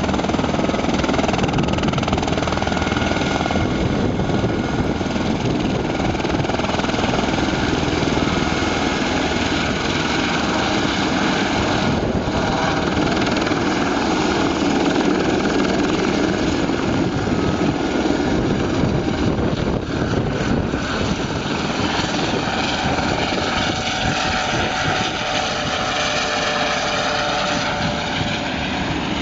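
Eurocopter EC120 helicopter running through a takeoff: its turbine and rotors make a loud continuous noise with steady high tones, growing slightly fainter near the end.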